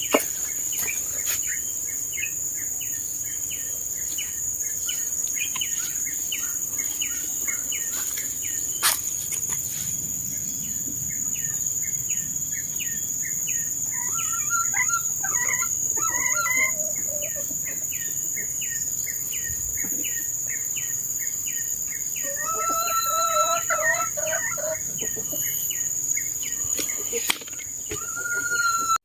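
Chickens clucking and calling a few times, over a steady high-pitched insect drone and a repeated chirping call about twice a second.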